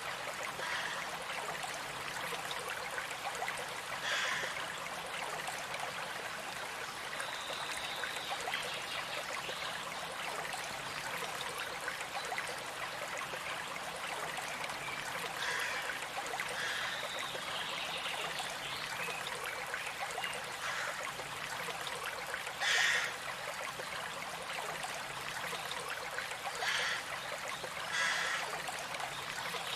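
Running stream water with a steady rushing and trickling, and a few short, louder splashy surges. Faint high bird notes come in a couple of times.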